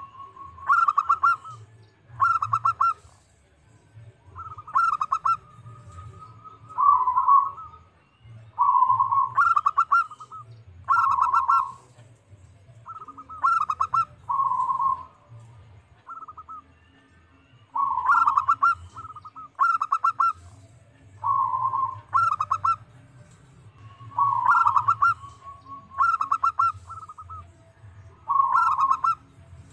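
Zebra dove (perkutut) cooing: repeated phrases of rapid staccato coos, one after another every second or two with a few short pauses.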